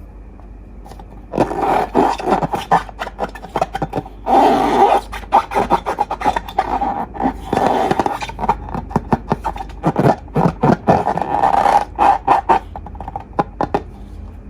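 Hands squeezing and working slime: dense crackling and snapping with a scraping squish. It starts about a second and a half in, comes in clusters, and thins to a few faint clicks near the end.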